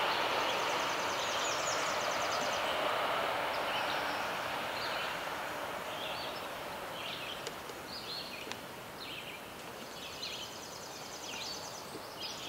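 Outdoor background: a broad rushing noise that slowly fades over several seconds, with small high chirps scattered through it and a quick high trill near the start and again near the end.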